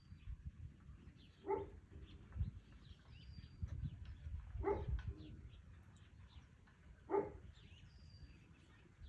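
Birds chirping, with three short, loud animal calls about three seconds apart over a low rumble.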